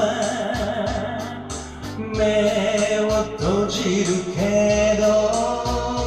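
A man singing a Japanese pop ballad into a karaoke microphone over the backing track, holding long notes with a wavering vibrato.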